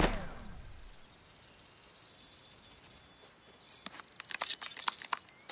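Steady high chirring of crickets in a cartoon meadow ambience, heard as the tail of a crash dies away in the first second. From about four seconds in come a handful of short, light clicks.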